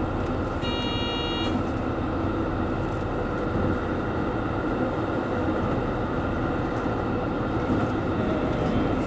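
JR Central Series 85 diesel express railcar running at speed, heard from inside the leading car: a steady mix of diesel engine drone and wheels rumbling on the rails. About a second in, a brief high ringing tone sounds for under a second.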